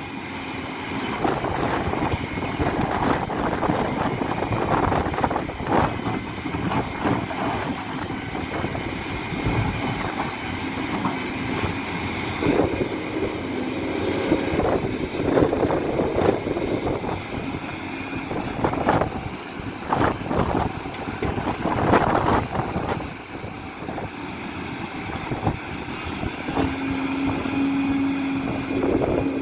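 Hidromek 500LC 50-tonne tracked excavator working in rocky ground: the engine and hydraulics run under load while the bucket scrapes and knocks irregularly against stone and dirt. A steady hum comes in near the end.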